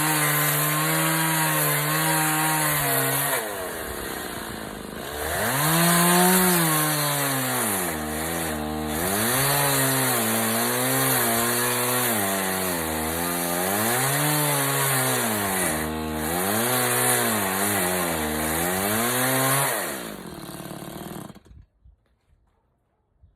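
Chainsaw cutting wood, its engine speed rising and falling again and again as it works, then stopping suddenly about twenty-one seconds in.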